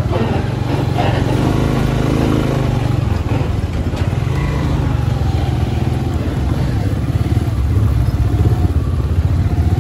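Motorcycle engine running steadily, as when riding along.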